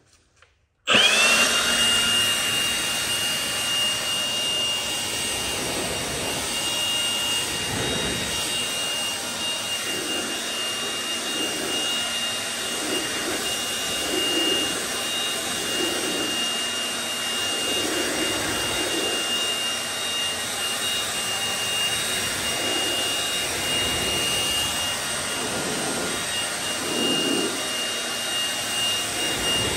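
Milwaukee M18 cordless leaf blower switching on about a second in, its whine rising quickly and then holding steady with a strong rush of air as it blows water off a truck's paint.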